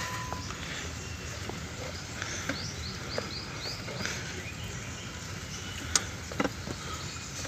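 Alternator drive belt being worked by hand onto its pulley: faint rubbing and scattered small clicks, then a couple of sharp knocks near the end. A quick run of high, falling chirps sounds a few seconds in.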